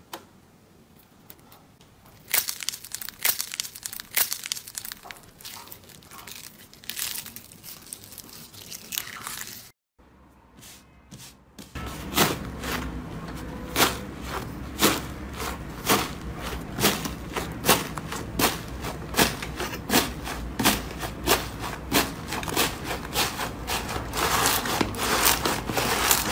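Hands squeezing and pressing slime, giving crackling, crinkling clicks. After a short break about ten seconds in, the crackles come louder and regular, about one a second, with each press.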